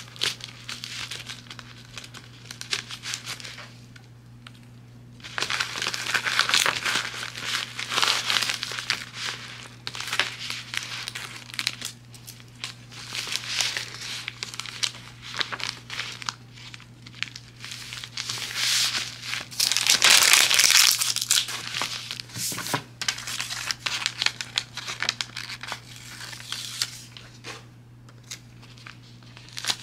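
Plastic bubble mailer crinkling and rustling as it is handled and packed, in irregular spells, the loudest about two-thirds of the way through.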